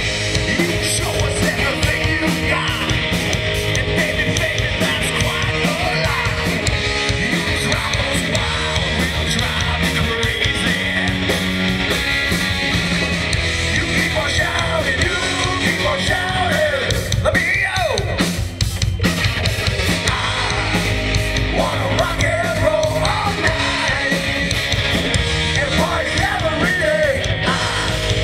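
Rock band playing live, a singer shouting the vocals over a steady drum beat.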